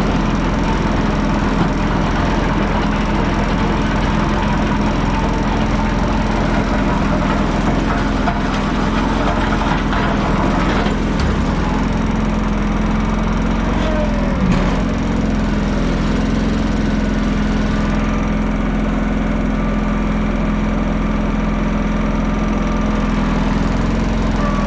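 An engine running steadily at a constant speed, with a brief dip in pitch about halfway through.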